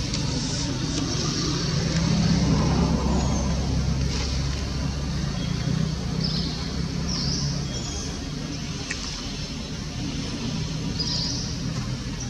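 A motor vehicle's engine running, a low rumble that swells about two seconds in and eases off after the middle. Several short high chirps sound over it in the second half.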